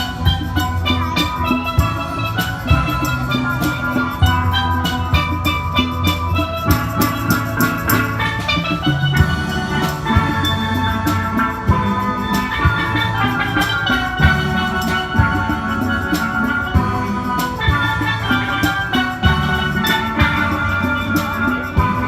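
A steel band playing: a quick melody of ringing steel pan notes over low bass notes, with drum and percussion hits keeping a steady beat.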